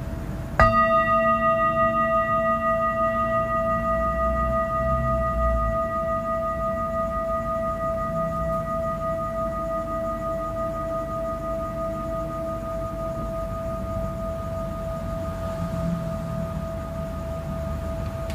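A singing bowl struck once about half a second in, then ringing a long steady tone with a few fainter higher overtones that fade slowly. A low rumbling noise runs underneath.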